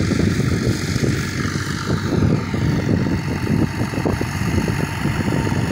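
Tractor engine running at a distance, nearly buried under wind rumbling and buffeting on the phone microphone.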